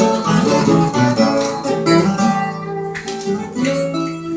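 Instrumental break in a Brazilian caipira song: a viola caipira plucks a quick melody over acoustic guitar accompaniment, with no singing.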